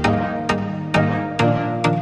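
Electronic background music with sustained synth notes and a steady beat.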